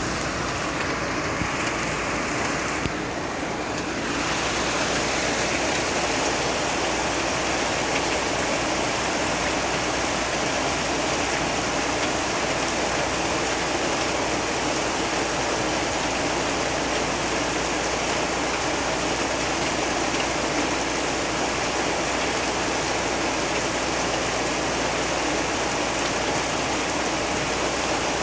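Heavy rain falling steadily, a dense, even hiss that grows a little fuller about four seconds in.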